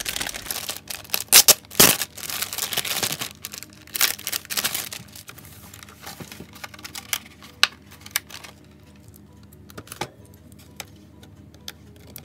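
Thin clear plastic packaging crinkling and crackling as a wall clock is pulled out of its plastic bag and plastic tray, dense for the first five seconds, then thinning to occasional clicks and handling taps.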